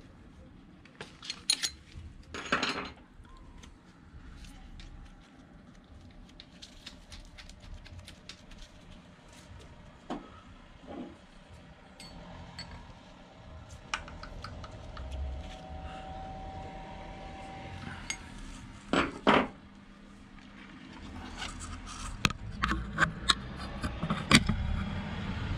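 Metal tools and engine parts clinking and knocking as they are handled, in scattered groups of sharp knocks with quieter stretches between.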